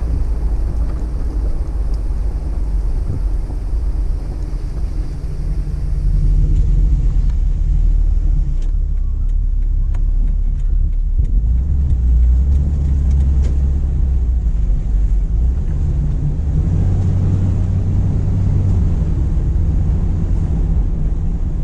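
Jeep Wrangler TJ's 4.0-litre inline-six running while driving, heard from inside the cabin with road noise: a steady low rumble that gets louder about six seconds in.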